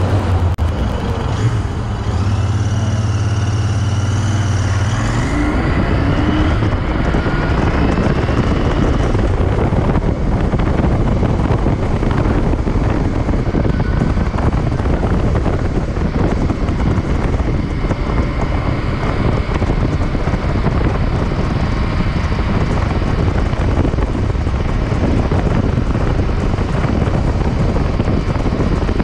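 Royal Enfield Interceptor 650's parallel-twin engine idling, then rising in pitch as the bike pulls away about five seconds in. After that, wind noise on the microphone at riding speed covers most of the engine.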